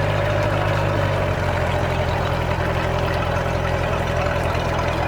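Boat engine running steadily at low speed, just restarted after an alternator and fusible-link repair, settling to a slightly lower speed about a second and a half in. Its running suggests minor carburetor issues.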